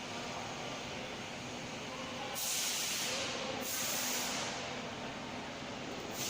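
CNC router machinery running, giving a steady hiss with two louder surges of hissing about two and a half and four seconds in.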